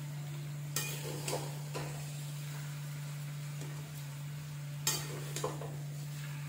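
Fried chicken being scraped out of a pan into gravy in a pressure cooker: a few sharp knocks and scrapes of a metal utensil against the pans about a second in and again near the end, over a steady low hum.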